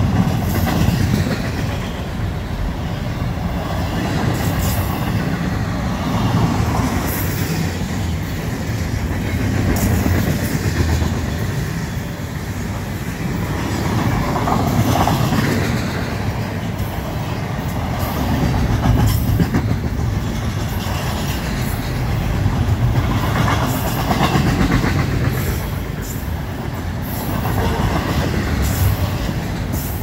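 Double-stack intermodal well cars of a CSX freight train rolling past at close range: a steady low rumble and clatter of steel wheels on rail, rising and falling every four to five seconds, with scattered sharp high clicks.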